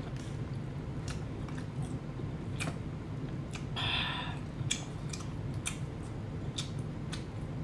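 Close-up eating sounds of someone chewing firm spiny lobster meat: wet mouth clicks and smacks scattered throughout, with a short breathy sound about four seconds in, over a steady low hum.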